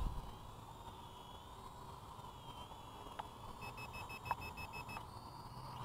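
Propel Orbit HD quadcopter's propellers humming faintly in the distance, the whine wavering in pitch as it flies. Midway through, a quick even run of about ten short electronic beeps, then a brief steady tone, with a couple of small clicks.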